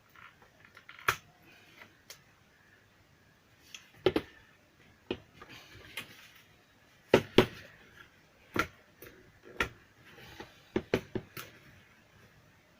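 Irregular sharp clicks and knocks of small plastic and metal parts being handled while a portable Bluetooth speaker is taken apart, about a dozen in all, with louder double knocks a third of the way through and again past the middle.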